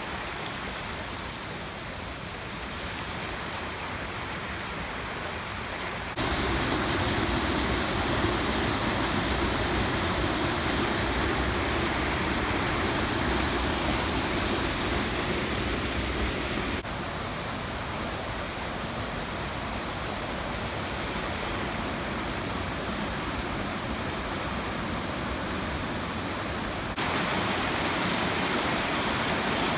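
Steady rush of fast-flowing river water. Its loudness and tone change abruptly three times.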